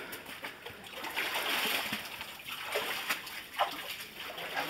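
Footsteps wading through shallow creek water: a stretch of splashing about a second in, then a few separate splashy steps.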